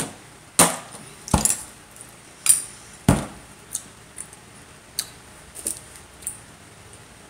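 Eating utensils clicking and knocking against takeout food containers, with a few sharp loud knocks in the first three seconds and then lighter, scattered ticks.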